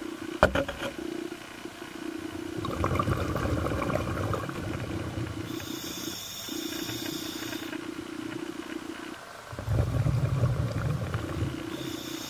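A scuba diver breathing through the regulator underwater: a hiss on each inhale and a bubbling rumble on each exhale, about one breath every six seconds, over a steady low hum. A sharp knock about half a second in.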